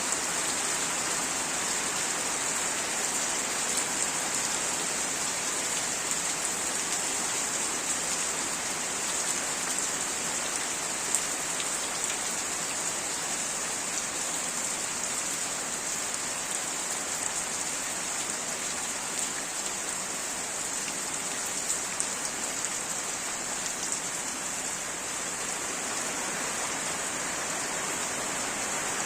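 Steady rain falling on surfaces, an even hiss with scattered individual drops ticking.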